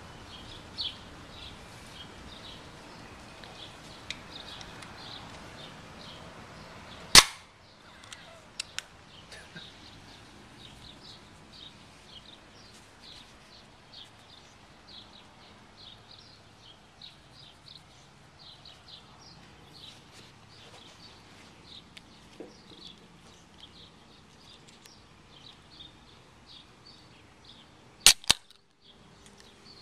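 Aluminium Miller Lite beer cans cracked open by their pull tabs: one sharp pop about seven seconds in, the loudest sound, and a quick double click near the end as the second tab is lifted. Small birds chirp faintly throughout.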